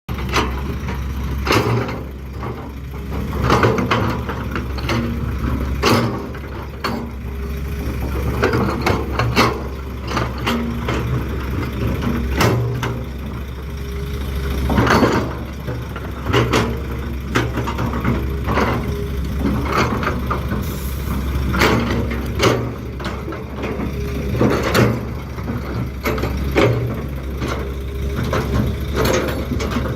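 Heavy diesel machinery: an excavator working beside dump trucks, engine running steadily. Frequent sharp clanks and knocks come from the bucket and the stone being handled.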